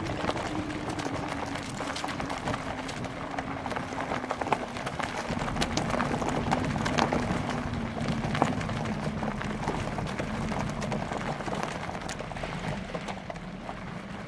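Bicycle riding over a rough dirt trail: tyres rolling and the bike and mounted camera rattling and knocking over bumps, with wind buffeting the microphone. A low hum underneath slowly drops in pitch.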